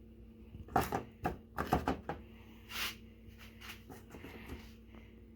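Handling noises of a cup and a cloth wick: a quick run of knocks and clatters about a second in, then softer rustling and light clicks. A faint steady hum sits underneath.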